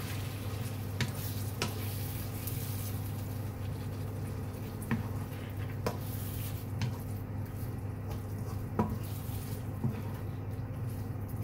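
Wooden spatula stirring pork belly into coconut milk in a wok, knocking against the pan now and then. A sizzle dies away a few seconds in as the cold coconut milk takes the heat out of the pan, over a steady low hum.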